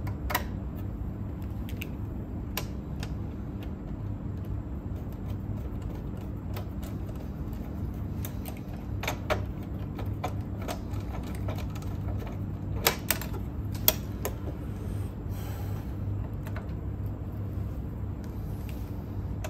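Scattered small metallic clicks and taps of a screwdriver and screws being worked into a cassette deck's chassis in a tight spot, the loudest clicks a little past the middle, with a brief scrape soon after. A steady low hum runs underneath.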